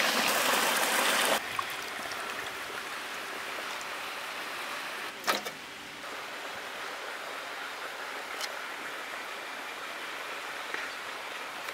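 Water gushing from a pipe into a steel pot, cutting off suddenly about a second in. Then a softer steady hiss, with a few faint clicks as squid are handled in a pot of water.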